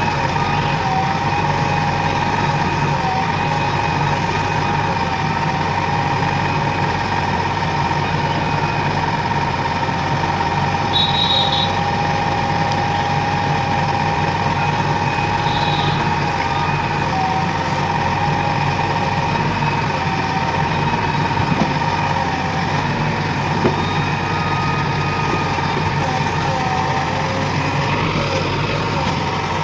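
JCB 3DX Plus backhoe loader's diesel engine running steadily, with a constant whine over the engine note.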